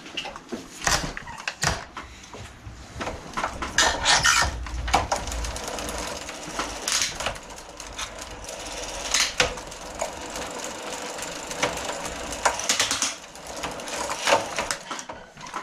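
Gazelle Orange city bike being cranked in a repair stand, chain and rear wheel running with a steady clatter of small ticks. Louder clicks come several times as the gears are shifted through to check that every gear engages after the rear-wheel repair.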